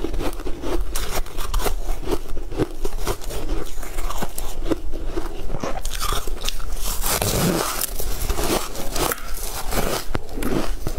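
A person biting into and chewing a crunchy purple snack with a granular coating: a dense run of close, loud crunches, heaviest in the middle of the stretch.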